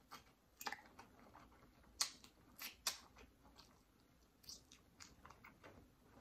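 Faint close-up chewing and biting of food, heard as irregular crisp mouth clicks, crunches and wet squishes.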